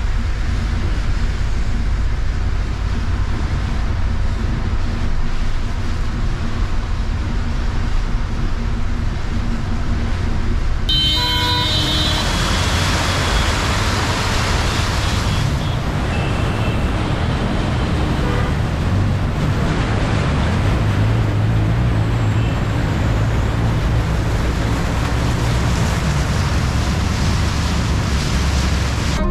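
Volvo B8R bus on a rain-soaked highway, heard from inside the front of the cabin: a steady low rumble of engine and tyres. A horn toots briefly about eleven seconds in. After that a loud, steady hiss of water spray takes over as the bus drives through a flooded stretch of road.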